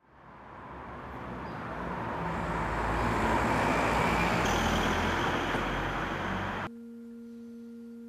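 A car driving past on the street, its tyre and engine noise swelling to a peak and easing off, then cut off abruptly about two-thirds of the way in. A steady low tone holds from the cut to the end.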